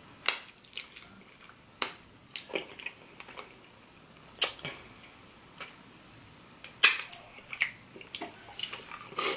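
Wet mouth sounds of eating an iced cinnamon roll: sticky smacks and clicks from chewing and licking icing off the fingers, coming irregularly about once a second.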